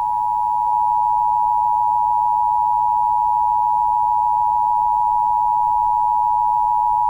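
Emergency Alert System attention signal: two steady tones sounded together as one harsh, unbroken alarm tone, the signal that opens a broadcast emergency alert.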